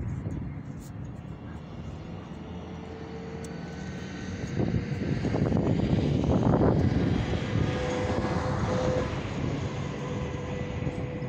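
Distant high-flying jet aircraft passing overhead: a steady low rumble that grows louder about halfway through and then holds.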